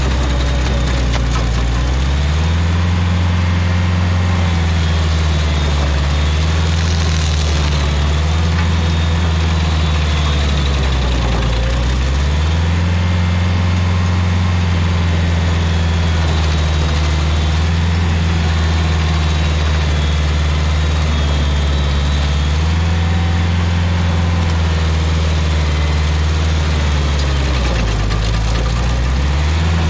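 Rayco RG50 stump grinder's engine running hard. Its note sags briefly three times, about two seconds in, around eleven seconds and near the end, as the cutter wheel bites into the stump and loads the engine.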